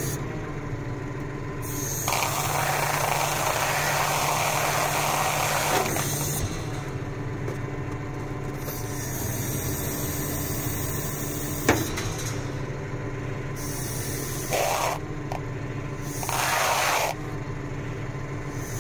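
Tractor engine running steadily while the bale wrapper's hydraulics are worked from the control levers: several bursts of rushing hiss as hydraulic oil flows to tip the wrapping table and drop the wrapped round bale, with one sharp knock about twelve seconds in.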